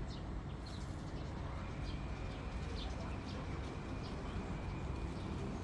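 Steady background rumble with a few faint, short, high chirps scattered through it.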